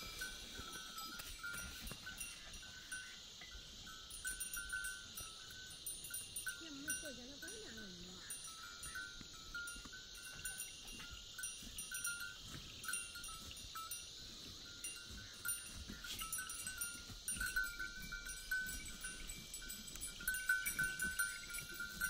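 Bells on a pair of ploughing bullocks clinking in an uneven rhythm as the animals walk, over a steady high hiss.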